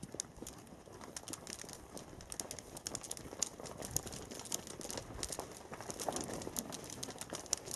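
Reindeer shifting about in a pen: irregular light clicking and rustling of hooves, with no steady rhythm.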